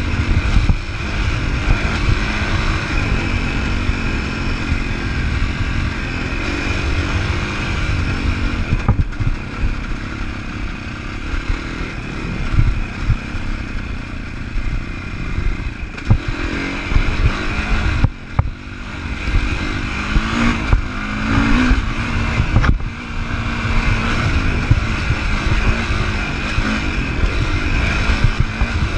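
2015 Sherco 450 SEF-R's single-cylinder four-stroke engine running under varying throttle, its pitch rising and falling, over a heavy low rumble of wind on the camera microphone. The throttle briefly closes about 18 and 22 seconds in.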